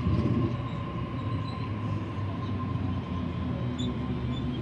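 Sydney Trains Waratah double-deck electric train pulling in at the platform: a steady electric whine over a low rolling rumble, a little louder at first.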